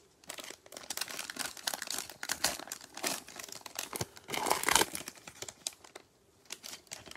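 Plastic wrapper of a Donruss Optic football fat pack crinkling in gloved hands, with the loudest rustle and rip about four and a half seconds in as the pack is torn open, then lighter rustling.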